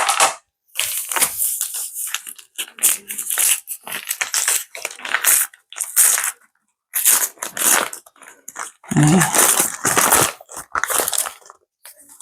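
Plastic packaging rustling and crinkling in irregular bursts with short pauses, as groceries are handled.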